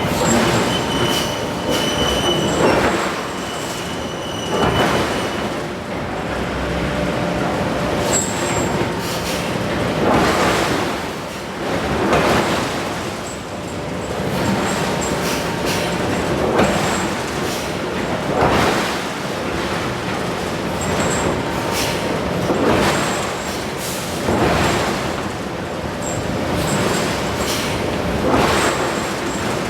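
Giant hydraulic forging hammer striking hot steel over and over, about one heavy blow every two seconds, each blow ringing out over a constant loud shop din. Thin metallic squealing tones sound in the first few seconds and again now and then.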